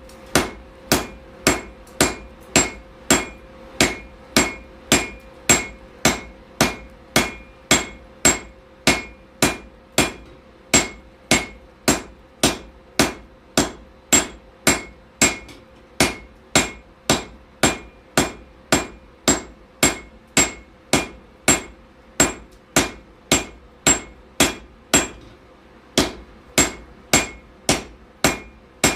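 Blacksmith's hammer striking steel on an anvil while forging a froe, steady blows about two a second, each with a short metallic ring. There is a brief pause near the end, and a faint steady hum runs underneath.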